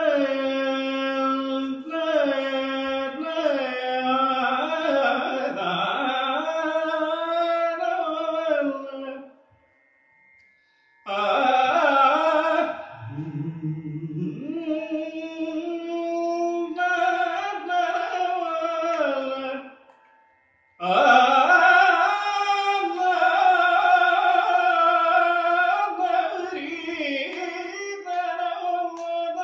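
A male Carnatic vocalist singing in raga Nattai, holding long notes with gliding ornaments. He breaks off twice for breath, about nine seconds in and again about twenty seconds in.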